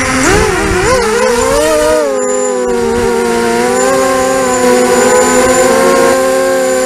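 Panda 280 racing quadcopter's four T-Motor 1804 brushless motors and propellers whining in flight, the pitch rising and falling with the throttle for the first two seconds, then holding nearly steady.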